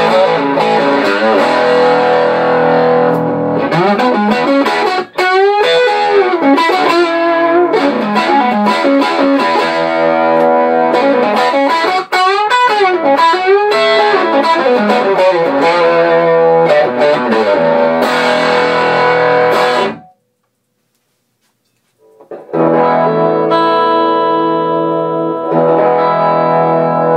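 Telecaster played through a Swart STR tube amp running an EL34 power tube into a JBL D120F speaker, mostly clean with a little breakup: strummed chords and lead lines with bent notes. It cuts out suddenly about two-thirds of the way through, then comes back with ringing, sustained chords.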